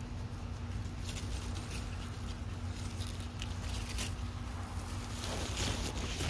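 Squash leaves and stems rustling and lightly crackling as they are pushed aside and handled to reach a flower.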